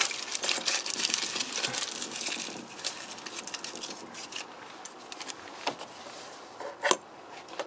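Aluminium foil crinkling as it is pressed by hand over an open fuel line port on a diesel fuel filter, dying away after about two and a half seconds. A single sharp click near the end.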